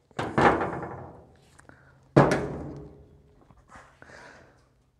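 Two clanks of metal parts set down on a sheet-metal workbench top, one about a quarter second in and one about two seconds in, each ringing out and dying away over a second or so, followed by a few faint knocks.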